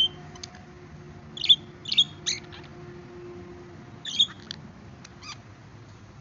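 Pet budgerigars chirping: short, sharp calls in scattered clusters, the loudest about one and a half and two seconds in, another burst about four seconds in, over a faint steady hum.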